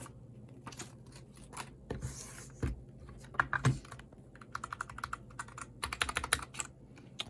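Keys of a new mechanical keyboard being pressed and tried out: scattered key clicks, then two quick runs of rapid typing in the second half.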